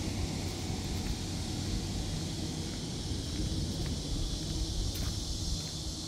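Steady low outdoor rumble of distant traffic, with a few faint footsteps on the paving.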